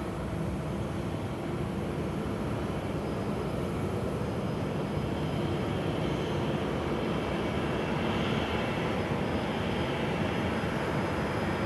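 Airport ambience of jet aircraft engines running at a distance: a steady rumble that grows slightly louder, with a faint high-pitched whine joining about three seconds in.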